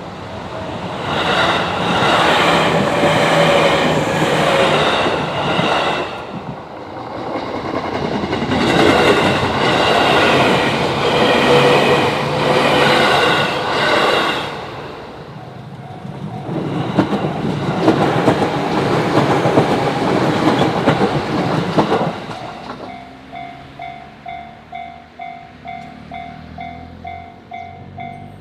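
A JR Sagami Line electric train passes a level crossing, its wheels clattering over the rail joints. Once it has gone by, about three-quarters of the way through, the crossing's warning bell is heard alone, dinging in an even repeat about one and a half times a second.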